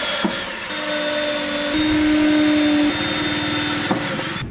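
Cordless drill running against the wooden panels of a subwoofer box: a steady motor whine that stops briefly near the start, then runs for about three seconds, louder in the middle, and cuts off abruptly near the end.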